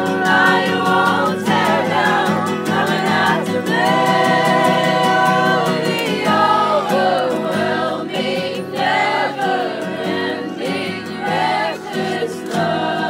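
Background music: a song with choir-like sung vocals over a steady beat.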